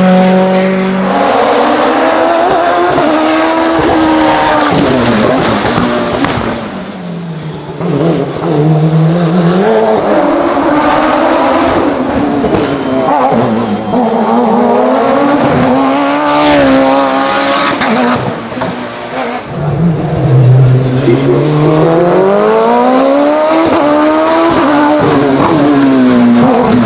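Hill climb race car engine at high revs, the pitch climbing and dropping repeatedly through gear changes. It backs off sharply twice, about seven and nineteen seconds in, before pulling hard again.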